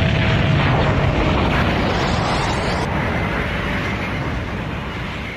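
Cinematic sound-effect rumble laid under an explosion animation: a deep, noisy rumble with hiss above it, slowly fading.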